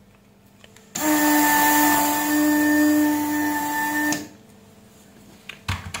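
Weller vacuum desoldering iron's pump running steadily for about three seconds, a hiss with a steady hum, sucking molten solder from a joystick module's pins. It cuts off abruptly, and a few light clicks follow near the end as the freed part is handled.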